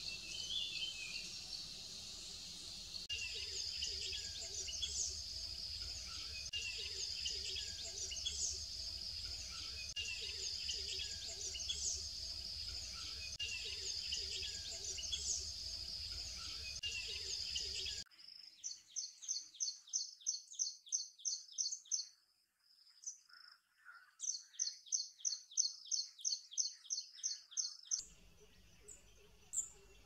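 Outdoor natural ambience of birds calling. A short call repeats every few seconds over a steady high hum. After an abrupt change, a bird chirps rapidly at about four calls a second in two runs of several seconds each.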